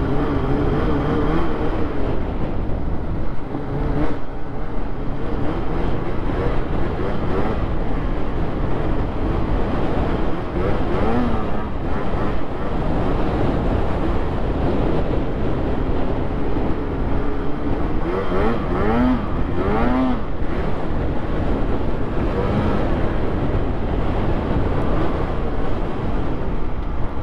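Polaris SKS 146 snowmobile's two-stroke engine running under way, its pitch rising and falling with the throttle. It revs up briefly about eleven seconds in and again twice around eighteen to twenty seconds in.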